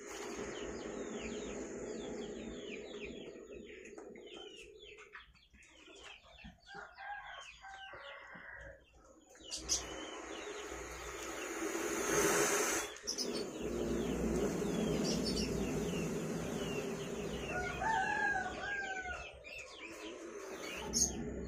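Domestic chickens clucking, with a rooster crowing about 18 seconds in, over many quick high chirps of small birds. A short burst of hiss comes about 12 seconds in.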